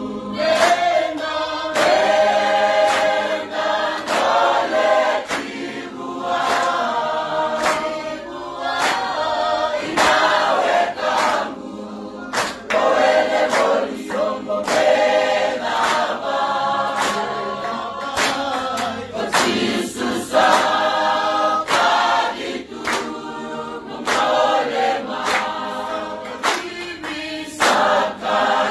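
Background music: a choir singing, over sharp percussive beats.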